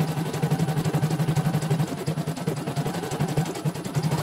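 CNY portable computerized embroidery machine stitching a design, its needle running in a rapid, even rhythm of strokes.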